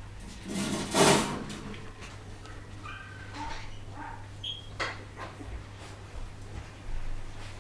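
Poodle puppies squeaking and whimpering, with one louder cry about a second in and a few short high squeaks around the middle, among light knocks and clicks. A steady low electrical hum lies underneath.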